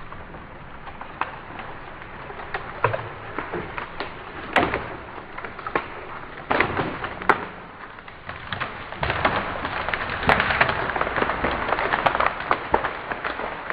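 Dry dead-wood branches cracking and snapping, a dense run of sharp cracks and crackling that grows louder about nine seconds in.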